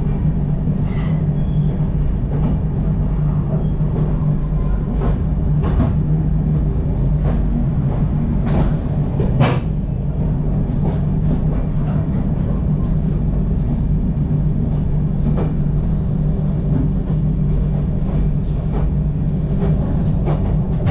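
Passenger train running, heard from inside a coach: a steady low rumble with irregular clacks of wheels over rail joints and points. A faint, high wheel squeal comes in about two seconds in.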